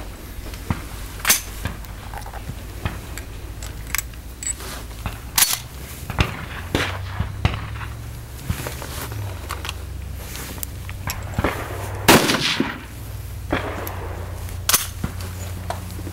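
Rifle shots from several shooters firing along a Highpower match line, coming irregularly, some loud and close and others fainter down the line, with the loudest shot about twelve seconds in.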